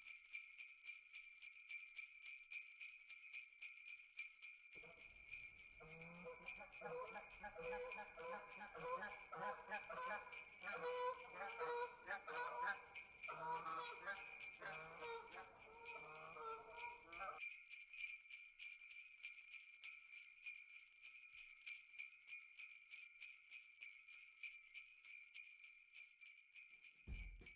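Sleigh bells jingling steadily throughout. From about five seconds in until about seventeen seconds, a flock of geese honks over them in short broken calls.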